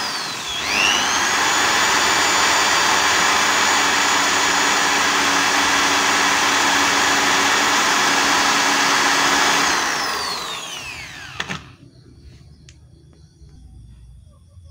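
Handheld electric drill boring a pilot hole into the gear-shift lever of a Honda Super Cub. The motor's pitch dips briefly just after it starts, then holds steady for about nine seconds, then falls and winds down as it is switched off.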